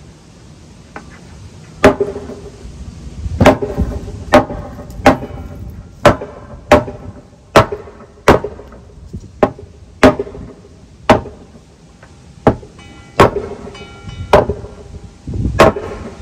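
Hammer blows on a new wooden rim joist board being driven into place: about fifteen sharp strikes at an uneven pace, roughly one a second, some leaving a brief ringing tone. The board keeps bouncing back out rather than seating, from the spring in the long board.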